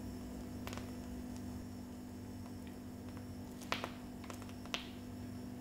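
Faint steady electrical hum, with a few soft clicks, the clearest two near the end.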